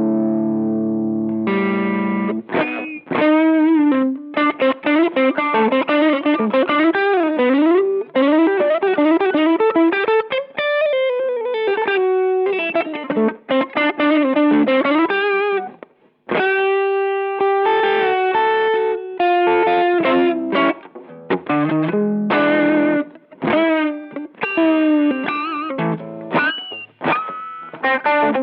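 Electric guitar played through a Boss SD-1 Super Overdrive pedal with an overdriven tone. A held chord rings out first, then fast lead lines with string bends follow. About halfway through comes a long sustained note, then more short phrases.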